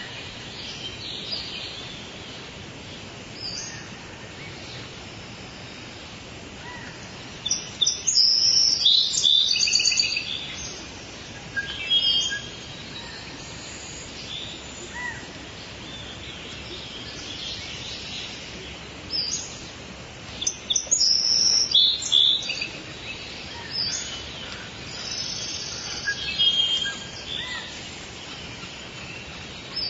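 Birds chirping and singing in quick high trills, in bursts with short gaps, the liveliest stretches about a third of the way in and again past the middle, over a steady low hiss.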